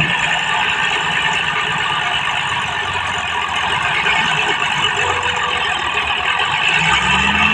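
Heavy diesel earthmoving machinery running under work, a dense steady mechanical din. The low engine note swells and rises near the end.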